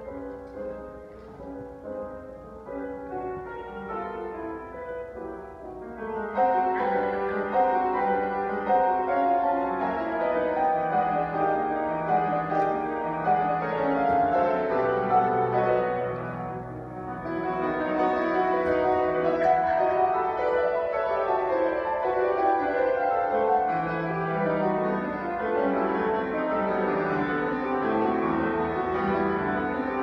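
Solo grand piano piece, played softly at first, then louder and fuller from about six seconds in, with a brief lull about halfway through.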